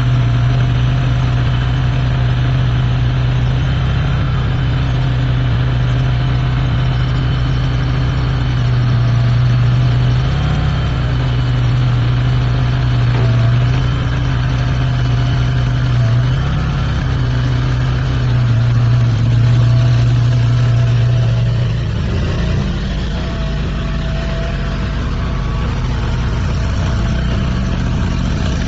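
Compact mini skid-steer loader's engine running steadily with a strong low hum, briefly rising in pitch twice, about ten and sixteen seconds in. About twenty-two seconds in, the steady low note drops away and the engine sound changes character.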